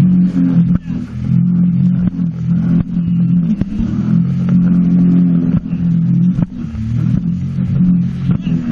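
Sea-Doo jet ski engine running under throttle, its level and pitch wavering, with a few sharp knocks now and then.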